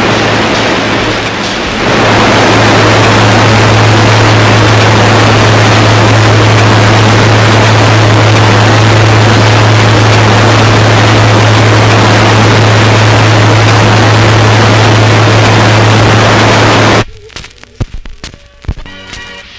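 Harsh noise from a turntable-and-mixer improvisation: a loud, dense wall of hiss over a steady low hum. It cuts off suddenly near the end, leaving sparse clicks and short scratchy sounds from the turntables.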